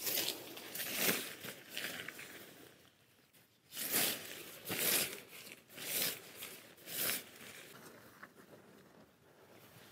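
Rustling and crinkling of fabric and plastic camping gear being handled, in a string of short bursts about a second apart with a brief pause partway through.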